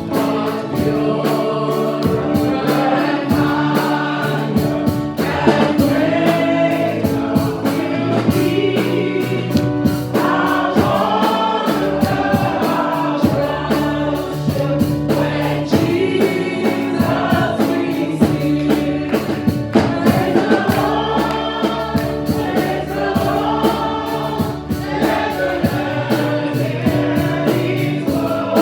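Gospel worship music: a choir singing over instrumental accompaniment with a steady beat.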